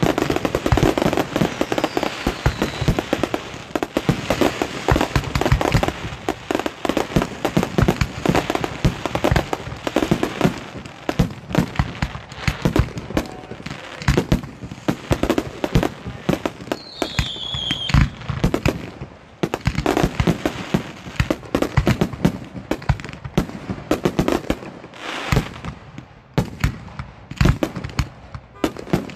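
A continuous barrage of display fireworks: aerial shells and low effects bursting in rapid, overlapping bangs with crackle. About two-thirds of the way through, a brief whistle falls in pitch among the bangs.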